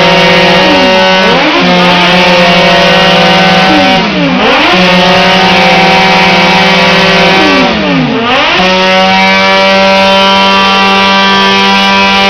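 Two Honda CBX 750 air-cooled inline-four engines with 4-into-1 Torbal exhausts, revved together and held at high rpm. Their revs drop briefly and climb straight back about three times, the two engines' pitches crossing each other.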